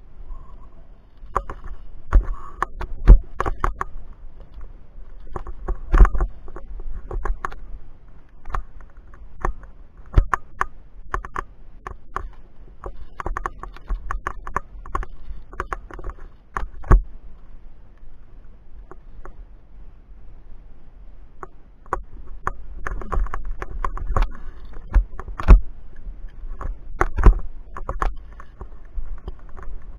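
Irregular metallic clicks, clanks and knocks of via ferrata gear being handled, as carabiners and hands work along the steel cable and iron chains, with scuffs against rock. The clatter comes in clusters, thickest near the start and again near the end.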